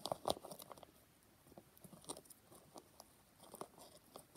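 Faint rustling and light clicks of small doll clothes being handled and pushed into a small fabric handbag, with a few sharper clicks in the first half second.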